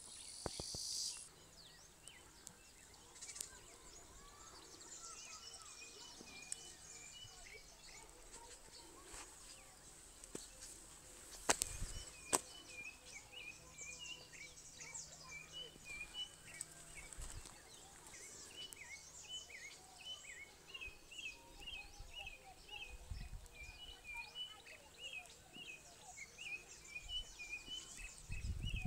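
Faint outdoor ambience of small birds chirping over and over in short, quick notes, starting a few seconds in. Two sharp knocks from handling the phone come near the middle.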